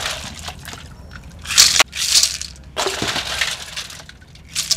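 A wire skimmer scoops wet pieces of boiled duck feet from a metal bowl of water and drops them onto ice cubes in a stainless-steel colander: water splashing and ice cubes clinking and crunching, in a few separate bursts.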